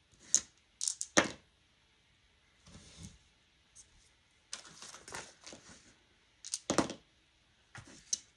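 Small dice clicking and knocking as they are rolled into a dice tray, a few separate rattles with brief paper rustles between.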